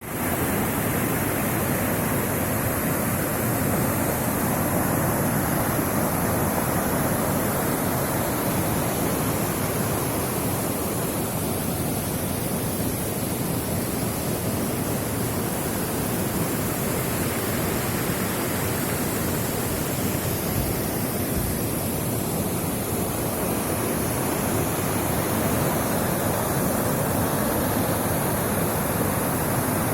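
Cascading waterfall on a mountain river, water rushing steadily.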